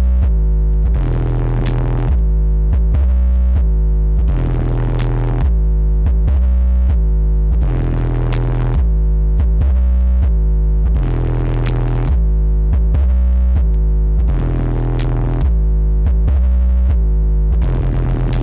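Electronic dance music played very loud through a truck-mounted carnival sound system ('sound karnaval'), dominated by heavy, deep bass, with a short phrase repeating about every three and a half seconds.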